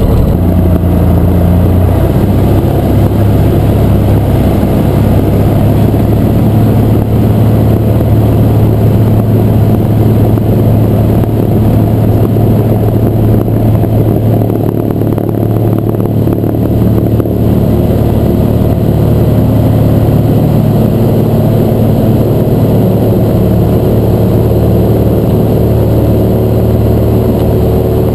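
1956 Cessna 172's Continental O-300 six-cylinder engine and propeller running steadily at low power as the plane rolls over a grass airstrip, heard from inside the cockpit.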